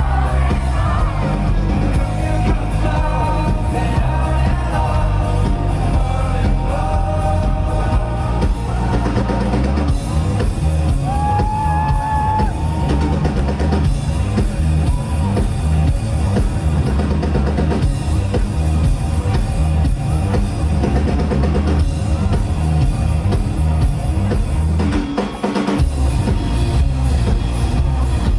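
Live rock band playing a song: steady drum kit and bass under guitars and a singing voice, with a brief break in the drums and bass near the end.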